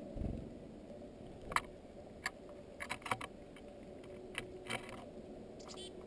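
Sharp clicks and taps of small birds pecking and shuffling in seed on a wooden feeder, close to the microphone: scattered single taps and a quick cluster of several about halfway through, with a low thump near the start.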